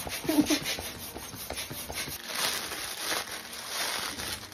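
Quick rhythmic strokes of a small hand balloon pump inflating a latex balloon, then, about two seconds in, the crinkling rustle of tissue paper as a pom-pom is fluffed open.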